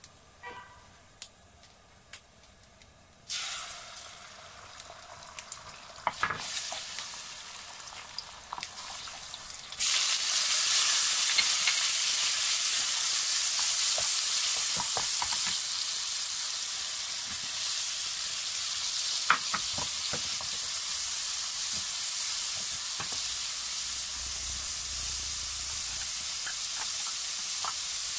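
Oil heating in a nonstick wok begins to sizzle about three seconds in; about ten seconds in the sizzle jumps much louder as food goes into the hot oil, and egg and tomato keep frying while a wooden spatula stirs and taps against the pan.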